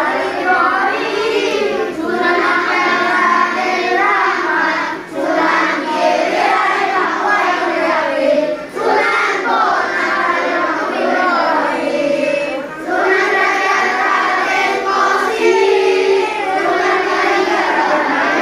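Children singing a song together as a group, a melody carried in unison, with short pauses between phrases.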